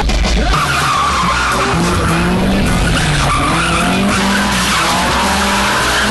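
Drift car's engine revving up and down hard, with tyres skidding as the car slides sideways.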